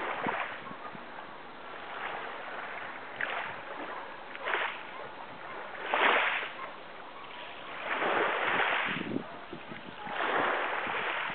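Water splashing and washing in irregular surges every one to two seconds, each lasting half a second to about a second, the biggest about halfway through and again a little later.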